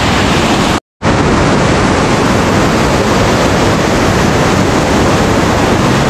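Water rushing loudly down a rocky river cascade, a steady, close wash of noise, broken by a split second of total silence about a second in.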